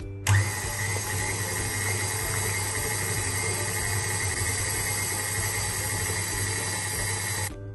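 Electric mixer running steadily at speed, whisking butter, sugar, vanilla and egg into a batter; it starts just after the beginning and cuts off suddenly near the end.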